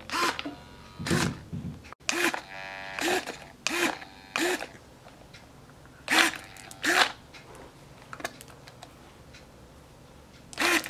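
Small littleBits hobby servo whirring in short bursts, usually two at a time, as the button is pressed and it swings the candy cup to let candy drop out.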